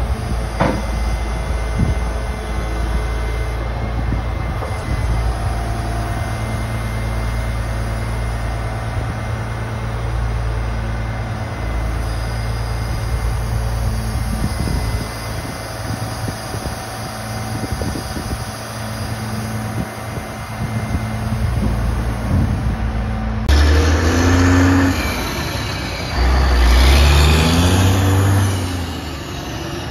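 Cat C15 (6NZ) diesel of a Western Star 4900 grapple truck running steadily while it powers the Palfinger loader lifting a concrete block. About 23 seconds in it changes abruptly to the truck accelerating away, louder, the engine note climbing and dropping back with each upshift.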